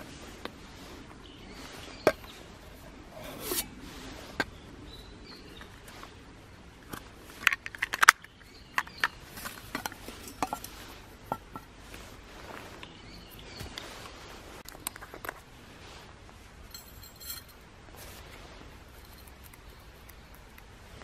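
Stainless steel camping mugs and lids being handled: scattered clinks, knocks and scrapes of metal, with a quick run of louder clinks about seven to eight seconds in.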